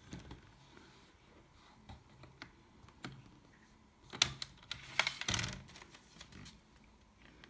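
Scattered light clicks and taps of hands on plastic, with a louder flurry of clicks about four to five and a half seconds in.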